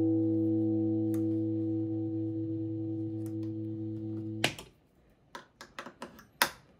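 An electric guitar chord ringing through a 1965 Fender Bandmaster tube amp, slowly fading, then cut off with a pop about four and a half seconds in. A handful of sharp clicks and crackles follow as a hand works the guitar cable at the amp's input jacks.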